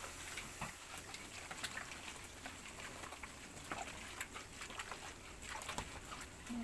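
Hands kneading and squeezing shredded banana blossom in water in a stainless steel pot: wet squelching and light splashing with many small scattered clicks. The blossom is being wrung to wash out its sap.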